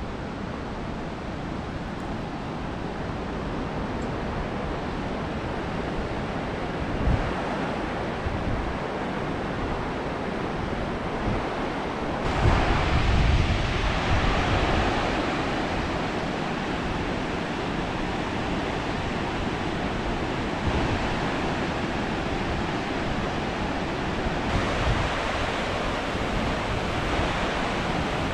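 Steady rush of a fast, shallow mountain river running over rocks below, with wind buffeting the microphone in low thumps, loudest about twelve to fourteen seconds in.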